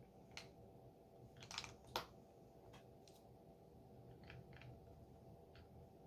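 Small plastic LEGO pieces being handled and pressed together: a scattering of light, sharp clicks, the loudest about two seconds in.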